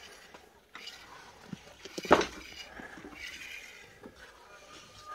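Scattered knocks and clatter of building work, with one loud knock about two seconds in.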